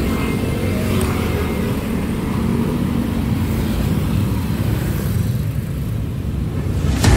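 Motorcycle engine running while riding along the road.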